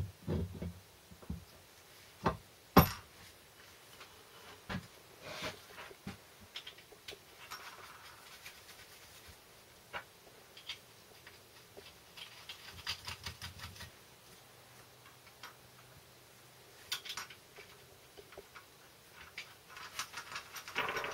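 Scattered clicks, taps and knocks of metal gearbox parts being handled and a cast cover plate being fitted into a gearbox bellhousing, with one sharp knock about three seconds in.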